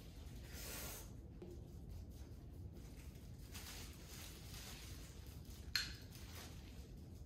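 Faint clinking and handling noises over a low steady hum, with one sharp click a little before the end.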